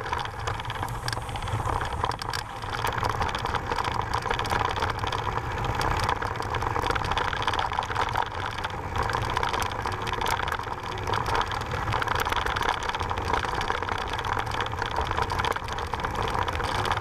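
Mountain bike riding over a loose, rocky gravel trail: a steady low rumble of wind and riding noise on the bike-mounted camera, with frequent small clicks and rattles from the tyres on stones and from the bike.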